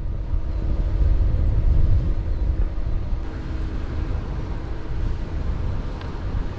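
Farm tractor pulling a Rome TRCW24 offset disc harrow through a field: a steady, heavy low engine rumble with a faint steady hum.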